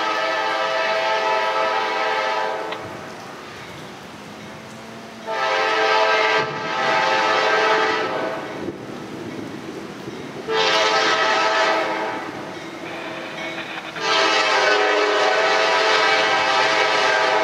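Diesel locomotive air horn sounding the grade-crossing signal as a train approaches: two long blasts, a shorter one, then a long one that runs nearly to the end.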